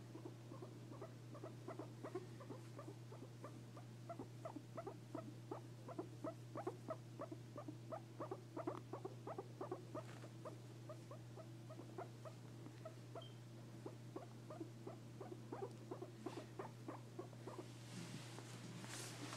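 Guinea pig making a long run of short, soft pitched calls, about four a second, that tail off near the end, followed by a soft rustle.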